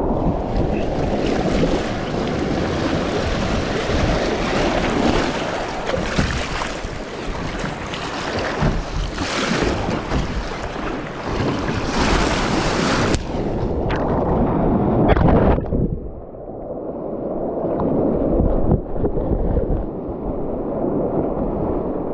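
Whitewater waves rushing and splashing around a sea kayak as it is paddled through a rapid, with wind buffeting the microphone. The bright hiss of the breaking water thins out about thirteen seconds in, leaving a lower rush of moving water.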